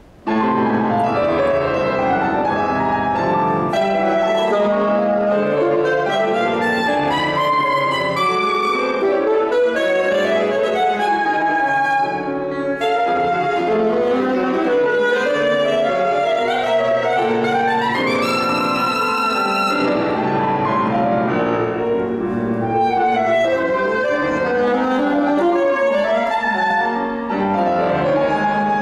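Saxophone and grand piano playing a classical duo together, starting suddenly just after the start. About two thirds of the way through, a rising run leads to a long high note held with vibrato.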